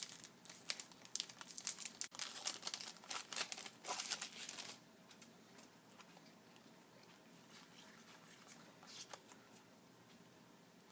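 Foil wrapper of a Pokémon TCG Generations booster pack being torn open and crinkled for about the first five seconds, then only faint handling sounds.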